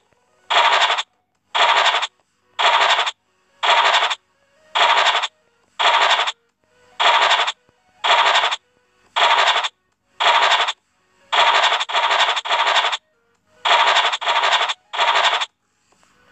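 Scratch sound effect of the FDJ Illiko online scratch game: a short scraping swish about once a second, each about half a second long, as the stars are uncovered one after another. A few come in quick pairs past the middle.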